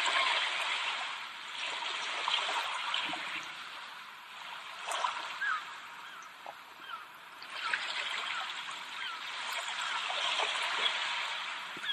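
Nature ambience of running water, a steady rush that eases off in the middle and swells again near the end, with scattered short bird chirps.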